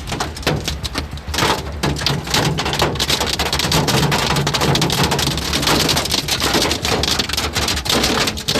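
Heavy hail pelting down: a dense, uneven clatter of countless small hits over the steady rush of rain.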